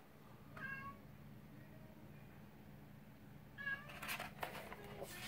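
A cat meows twice, two short faint calls about three seconds apart, followed near the end by paper rustling as a book page is handled.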